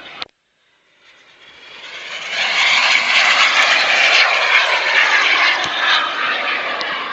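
Radio-controlled model jet flying by: the engine's rushing noise swells up out of silence over a second or two, stays loud, then eases off a little near the end.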